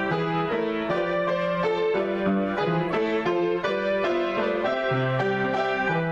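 Upright piano played in a free improvisation: a busy, unbroken stream of notes and chords from both hands.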